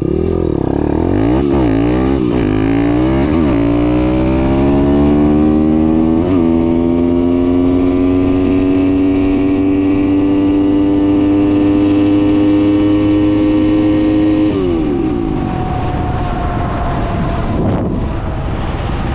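A Daytona 190 four-valve single-cylinder pit bike engine accelerating at full throttle. The revs climb and drop at several quick gear shifts in the first six seconds, then hold high and slowly rising in top gear for about eight seconds. Near the end the throttle is closed and the engine winds down. At the top of the revs the rider heard rattles that he takes for valves floating.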